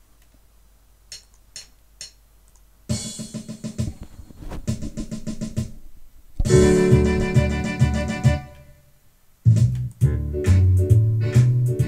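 Instrumental song intro on keyboard and drums: three faint clicks, then the music starts about three seconds in, with a long held chord midway and a steady, bouncing bass pattern near the end.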